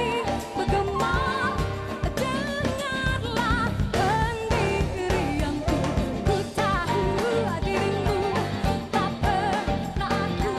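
Live band music: a woman singing lead into a microphone over drums and guitar, with a steady beat.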